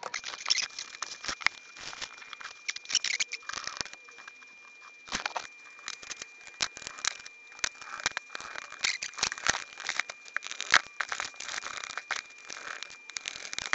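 Handling noise from an open-cased digital TV converter and its cables being moved about on a bench: irregular clicks, knocks and rustles, the sharpest a click near the end. A thin steady high tone runs underneath.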